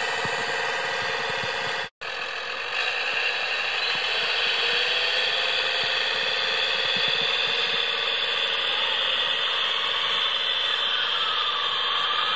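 Drive motor and gearbox of a radio-controlled scale tractor whining steadily as it drags chained logs through snow. The sound cuts out for an instant about two seconds in. Near the end a whine dips and then rises in pitch as the motor speed changes.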